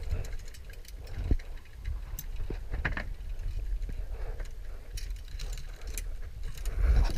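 Metal carabiners and zipline rigging clinking and rattling in scattered, irregular clicks, over a steady low rumble.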